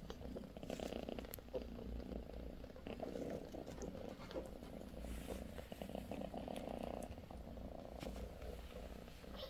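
British Shorthair cat purring steadily, with a few faint clicks over it.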